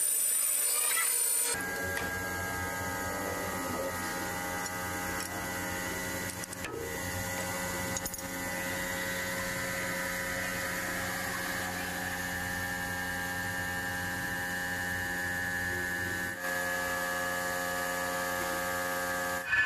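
Manual metal lathe: a high whine from the tool cutting the spinning steel part cuts off about a second and a half in. After that comes a steady machine hum with several even tones from the lathe's motor and drive, running while the chuck stands still, with a couple of light clicks as the part is handled.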